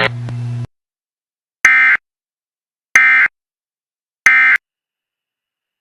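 Emergency Alert System end-of-message (EOM) signal: three short, identical digital data bursts about 1.3 seconds apart, the coded tones that mark the end of an alert broadcast. Before them, a steady hum cuts off less than a second in.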